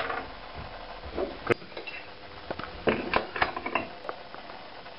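Scattered small metallic clinks and knocks as a slitting saw blade and its arbor are handled and fitted to the spindle of a small milling machine.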